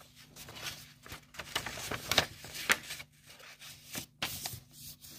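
A loose sheet of paper being handled and slid over a workbook page: irregular rustles and scrapes, the loudest a little after two seconds in and again about four seconds in.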